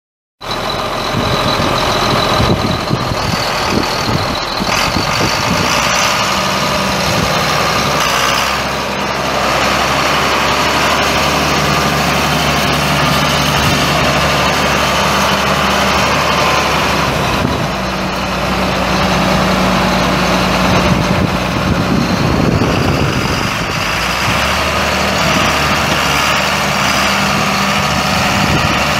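John Deere 4955 tractor's 7.6 L six-cylinder turbo diesel engine running steadily at idle.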